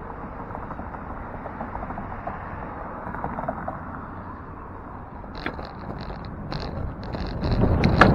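City traffic noise as a car drives past through the intersection; near the end the bicycle starts rolling and wind rumbles on the microphone, growing louder.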